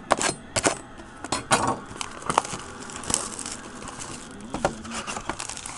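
Cellophane shrink wrap crinkling and tearing as it is stripped off a trading-card box, with irregular sharp crackles and taps, louder in the first half.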